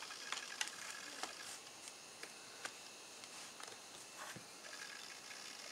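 Dell Latitude C600 laptop booting Windows 2000: faint, irregular mechanical clicks and ticks over a steady low hiss, as its drives work through startup.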